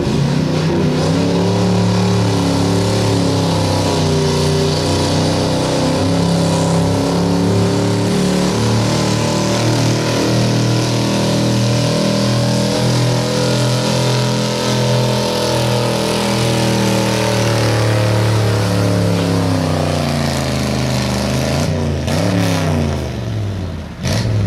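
1976 Ford F-250's stock gasoline engine running at high revs under heavy load, pulling a weight-transfer sled, its pitch holding fairly steady with small wavers. Near the end the revs fall away, rise briefly once more and drop off as the pull ends.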